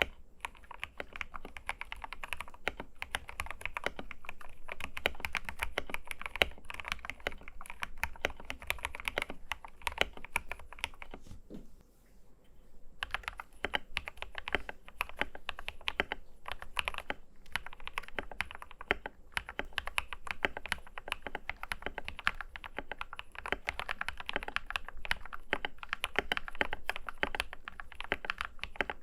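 Fast, continuous typing on a modded TM680 mechanical keyboard fitted with Akko budget linear switches, each keystroke a short clack. It breaks off in a brief pause about twelve seconds in, then resumes.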